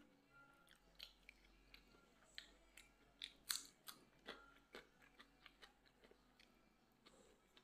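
Faint, irregular small clicks and taps, with a few sharper ones a little past the middle.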